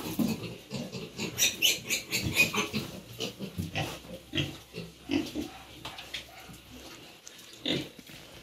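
Pigs grunting in a string of short, irregular calls, busiest in the first three seconds and sparser after.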